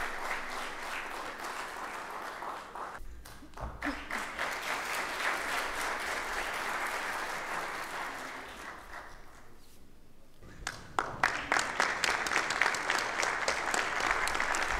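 Audience applauding. The clapping dies down briefly twice and picks up again, with sharper, more separate claps near the end.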